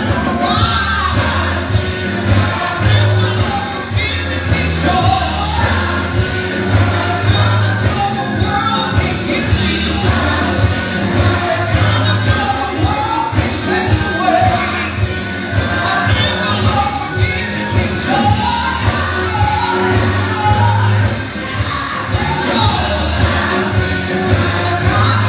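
Gospel music: voices singing over a band with a strong, steady bass line.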